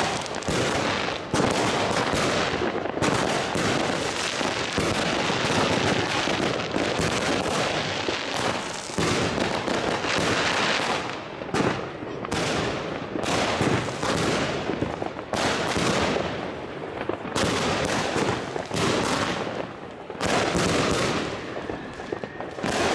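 Pangu Fireworks 'Juicy Heaven' consumer cake firing: a rapid, continuous volley of tube launches and aerial bursts, many bangs a second with no pauses.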